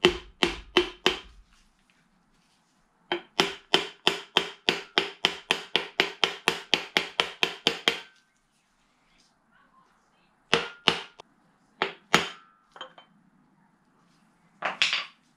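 A mallet tapping a large steel socket that serves as a driver, seating the rear main crankshaft oil seal into a Peugeot TU aluminium engine block. A handful of taps, then a steady run of about twenty taps at roughly four a second, then a few scattered knocks near the end.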